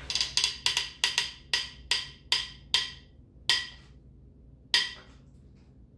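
Ratchet of a wrench clicking as an engine main cap bolt is turned to its final 80-degree angle: about a dozen sharp metallic clicks, coming quickly at first and then spreading out, the last two over a second apart.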